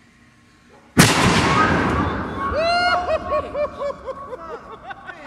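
Black-powder replica field cannon firing a bowling ball on a 5.3 oz charge of 1F Goex powder. One sharp boom about a second in, rumbling and echoing away over the next couple of seconds, then a man laughing in quick repeated bursts.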